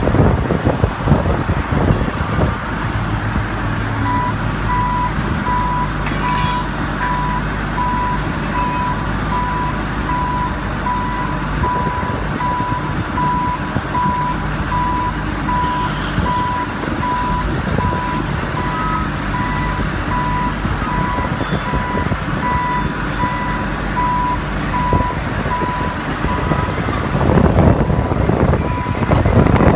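Warning alarm on a crawler crane beeping steadily at a single pitch, starting a few seconds in, over the steady running of the crane's diesel engine as it handles a derailed tank car. A gusty rush of noise comes up near the end.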